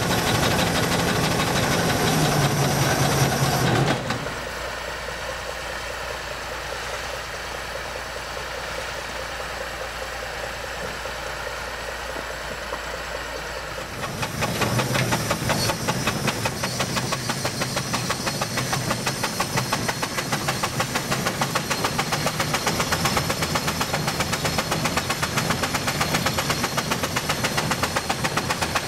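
Steam donkey engine running while it hauls logs on its cable. It is loud at first, then drops to a quieter steady hum for about ten seconds. Near the middle it comes back louder with a fast, even beat.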